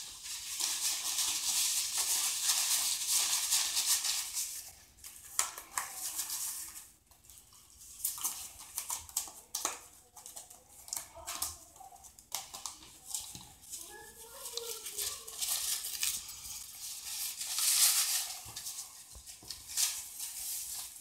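Paper towels rustling and crinkling as they are handled and folded. The rustling is loudest over the first four seconds and again near the end, with a few sharp clicks in between.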